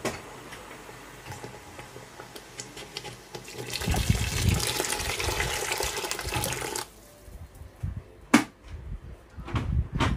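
Meat stock poured from a container into a pot of thick tomato and pepper sauce: a steady splashing pour of about three seconds, starting a few seconds in and stopping abruptly. It is followed by two sharp knocks as stirring begins.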